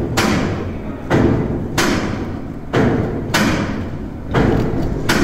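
A run of about seven sharp, heavy knocks, unevenly spaced roughly one a second, each ringing on in a large echoing workshop hall.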